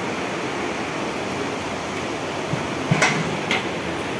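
Steady rush of flowing river water, with two sharp clinks about three seconds in, half a second apart.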